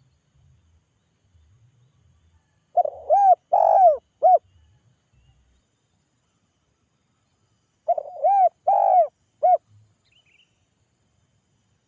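Spotted dove cooing: two phrases of four short, arched coos each, about five seconds apart.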